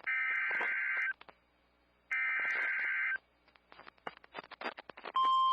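Emergency Alert System SAME data bursts, two harsh warbling one-second squawks about a second apart: the end-of-message code closing a severe thunderstorm warning on NOAA Weather Radio. About five seconds in, a steady single-pitch alert tone starts for the next warning, with faint crackling clicks in the gaps before it.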